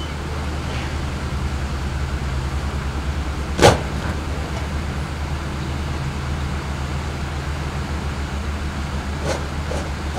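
Drill squad's boots on a parade ground: one sharp, loud unison stamp about a third of the way in, then a few fainter footfalls near the end as the squads step off. A steady low hum runs underneath.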